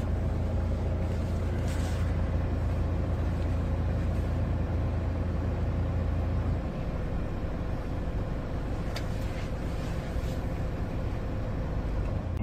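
Steady engine and road noise heard from inside a moving vehicle. A low drone eases off about halfway through, and a few short, faint hisses come and go.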